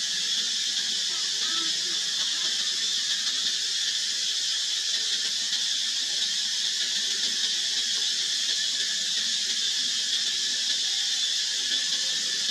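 Steady high-pitched drone of an outdoor insect chorus, holding at one level without a break.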